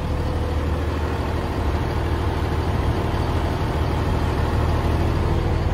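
The old, high-hours engine of a 42-foot 1982 boat running steadily under way, a constant low drone.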